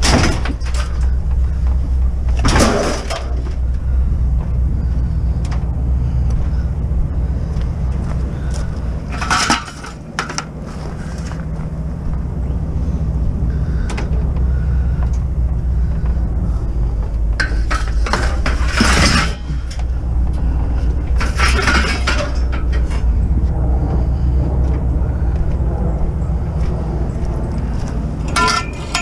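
Scrap metal clanging and rattling as pieces are thrown into a van load: about half a dozen separate crashes, some short, some rattling on for a second or two, over a steady low rumble.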